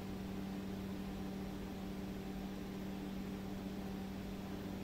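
Steady low hum over a constant hiss of background noise, with no other sound on top.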